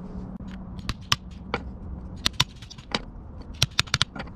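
Hammer striking a wood chisel into a pine block, about a dozen sharp taps at an uneven pace as the sides of the block are knocked off.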